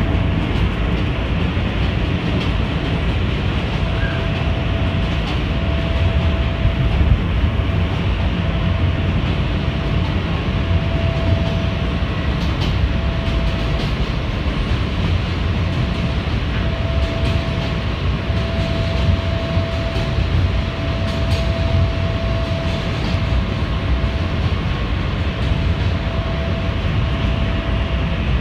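R160 subway train running at speed on express track, heard from inside the car: a continuous heavy rumble with scattered clicks from the wheels over rail joints. A steady mid-pitched tone comes and goes several times through the run.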